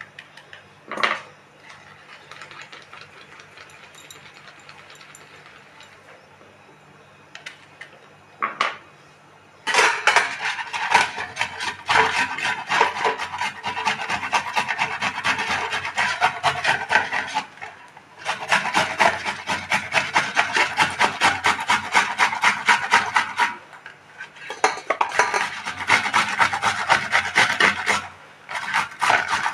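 Cucumber being grated on a handheld metal grater: rapid rasping strokes in long runs, broken by brief pauses. The first third is quieter, with only a few clicks, before the grating starts.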